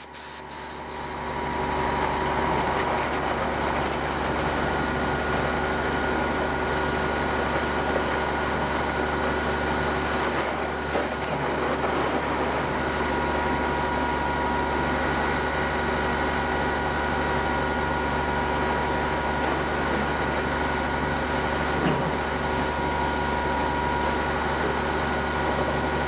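Diesel engines of a concrete boom pump truck and a ready-mix mixer truck running steadily during a concrete pour: a constant engine noise with a few steady whining tones over it.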